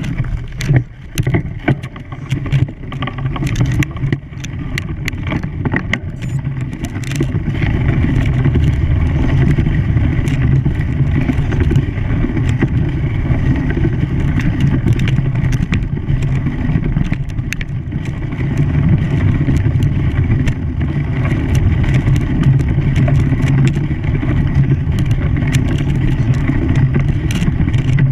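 An engine running steadily with a low hum. Sharp clicks and knocks are heard often during the first few seconds, then less often.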